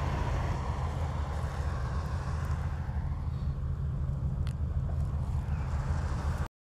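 A steady low rumble with a faint hiss above it, cutting off suddenly near the end.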